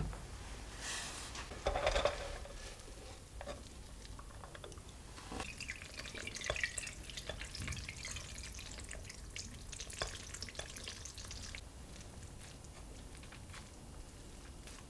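Grated potato being rinsed in a metal sieve: a stream of water poured onto the shreds splashes and drains through for about six seconds, starting about five seconds in. Brief handling rustles come before it, and quieter soft squishes follow as a spatula presses the wet shreds.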